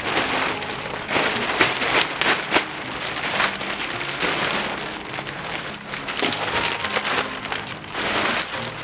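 Clear plastic sheeting crinkling and rustling as it is dragged over the PVC hoops of a cold frame, a dense crackle broken by many sharper crackles.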